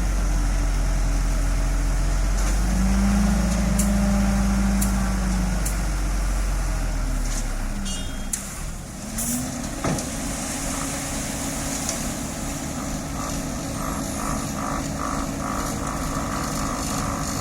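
Heavy diesel road-paving machinery (asphalt paver and dump truck) running steadily, with a brief hiss about nine seconds in. In the last few seconds a reversing alarm beeps about three times a second.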